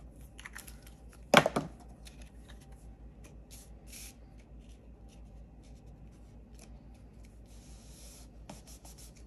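Paper-crafting handling sounds: cardstock being picked up and laid down, with a sharp knock on the table about a second and a half in, scattered light taps and rustles, and a short rubbing near the end as fingers press the glued cardstock flat.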